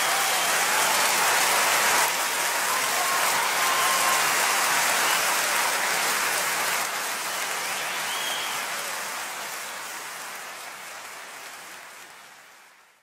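Large audience applauding, the clapping fading away over the last several seconds.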